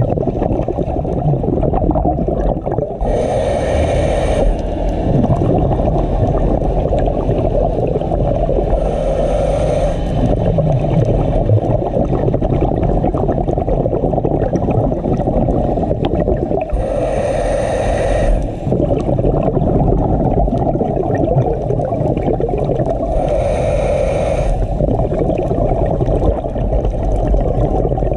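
Scuba diver's regulator breathing underwater: four bursts of exhaled bubbles, one about every six seconds, over a steady low rumble of water on the camera housing.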